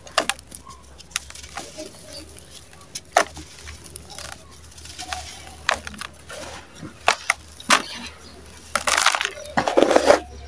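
Dry, gritty sand-cement chunks crushed and crumbled by hand in a plastic tub: scattered sharp crunches with gritty crumbling between them, and a longer run of dense crunching near the end.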